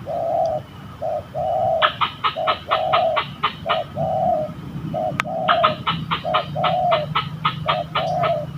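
Spotted doves (tekukur) cooing repeatedly, each call a short low note followed by a longer one. Runs of fast, higher pulsed notes, about five a second, sound between the coos, and there is one sharp click about five seconds in.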